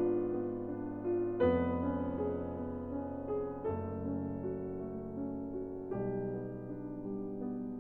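Background piano music: slow, soft chords struck about every two seconds, each left to ring and fade.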